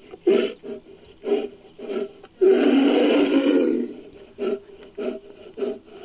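Made-up creature call for the extinct glyptodont Panochthus, built from edited black bear noises and a Hercules beetle sound: a string of short bursts with one longer call of about a second and a half about two and a half seconds in.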